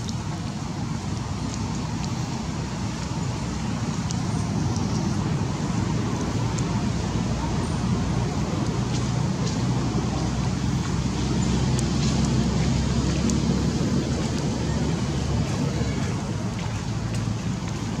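Steady low motor rumble with a hiss above it, swelling gently toward the middle and easing off near the end.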